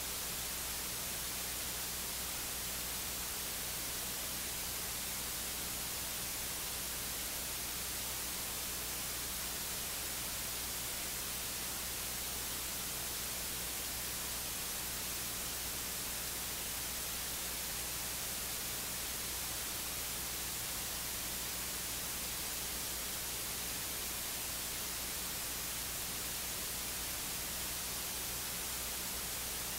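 Steady electronic hiss with a low hum underneath and no speech coming through: the sound of a recording whose audio feed has dropped out.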